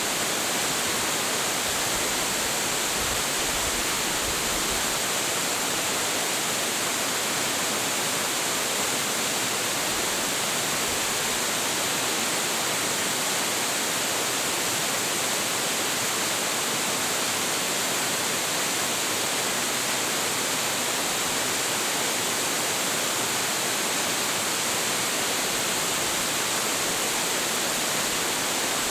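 Large waterfall: a steady, even rush of heavy falling water, unchanging throughout.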